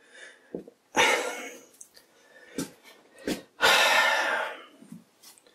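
A man sighing heavily in exasperation, two long breathy exhales about three seconds apart, with a few short clicks in between.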